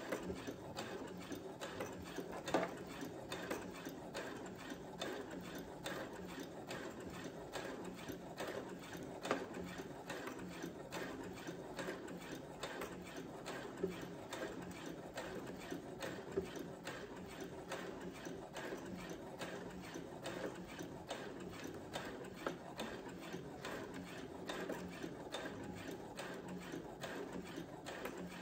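Brother CS7000X computerized sewing machine stitching a straight seam, its needle and feed going in a steady, rapid run of even clicks.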